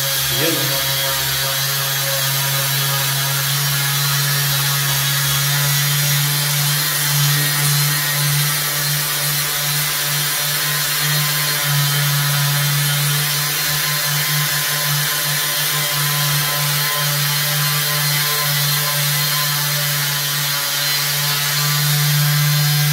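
Oshima 180 W electric orbital sander running steadily, its sandpaper pad rubbing over a puttied wall patch: a constant motor hum under an even, gritty hiss of abrasion.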